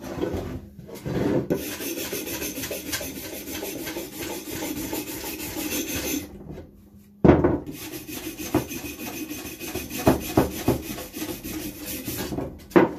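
Wire brush scrubbing dirt and rust off a steel axe head laid on a plywood bench, in rapid back-and-forth strokes. The scrubbing runs in two long spells with a pause of about a second just past the middle, and a few sharp knocks sound in the second spell.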